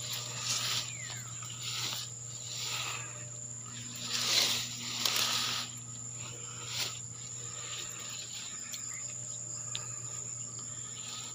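Footsteps pushing through dense grass and weeds: several brief swishing rustles over the first seven seconds, the loudest about four seconds in, then quieter. A steady high-pitched insect drone runs underneath throughout.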